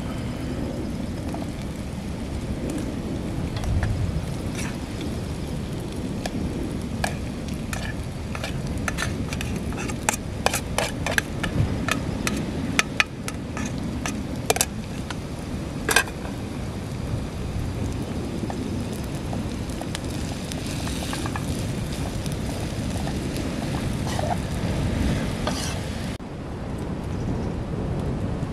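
A metal spoon clinking and scraping against an aluminium camping pot and plate as cooked rice is served, a series of sharp clinks in the middle, over a steady low rush of wind and surf.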